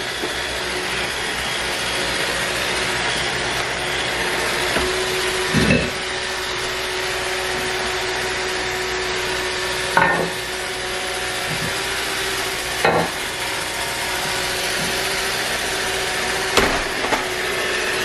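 iRobot Roomba robot vacuum running: a steady motor and brush whir with a constant hum. Four short knocks fall about a third of the way in, about halfway, near two-thirds and near the end.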